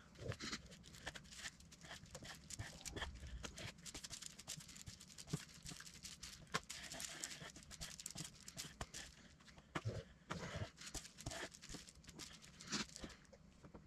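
Plastic spreader scraping and tapping as Bondo body filler and hardener are mixed on a plywood board: a faint, rapid, irregular run of soft clicks and scrapes.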